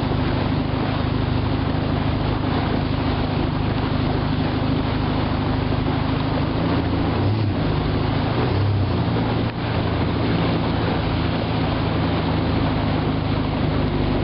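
Albatross Alpine runabout's engine running steadily under load while towing a second boat, with water rushing past the hull and wind.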